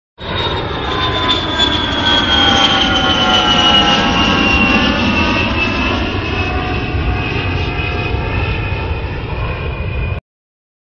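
Jet airliner sound effect: a steady engine roar with a high whine that slowly falls in pitch, cutting off suddenly near the end.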